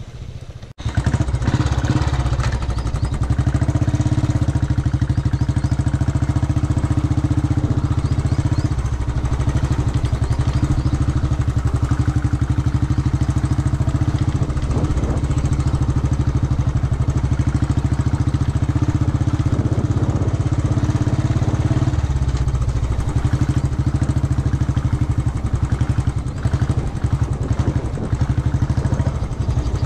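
Royal Enfield Bullet's single-cylinder engine running steadily under way on a sandy dirt track, starting about a second in, with the engine note shifting a little about two-thirds of the way through.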